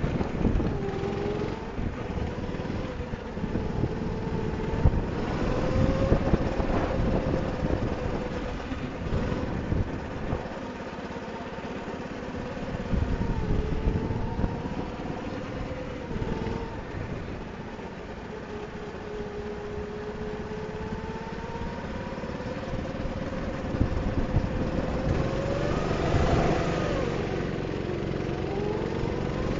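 Go-kart engine heard from on board the moving kart, its pitch rising and falling as the kart accelerates along the straights and slows into corners, over a low rumble. It grows louder for a few seconds near the end.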